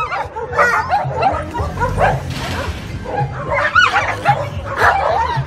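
Dogs fighting: a dense, continuous run of yelps, whines and short barks.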